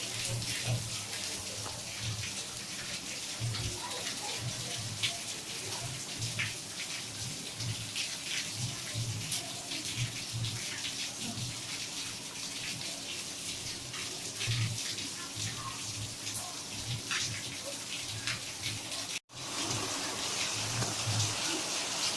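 Heavy monsoon rain with running and dripping water: a steady hiss full of individual drop splashes. It cuts out for an instant near the end and resumes.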